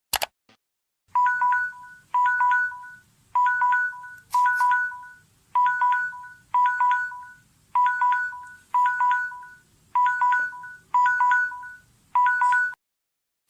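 Samsung phone alarm tone: a short cluster of quick electronic beeps on two pitches, repeated about once a second.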